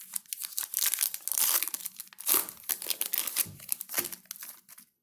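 Trading-card pack wrappers of 2020 Bowman Baseball retail packs being torn open and crinkled, a dense crackling that stops just before the end.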